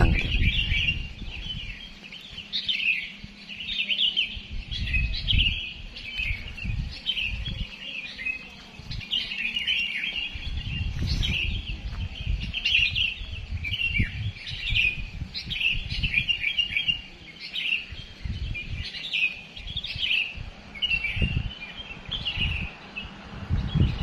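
Many small songbirds chirping and twittering at once in a dense, unbroken chorus, with low rumbling bumps underneath.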